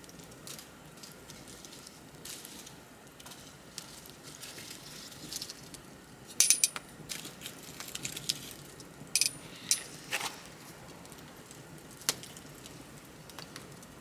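Wood bonfire crackling: a soft steady hiss with scattered sharp pops and snaps. The loudest burst of pops comes about six and a half seconds in, with more around nine to ten seconds and one at twelve.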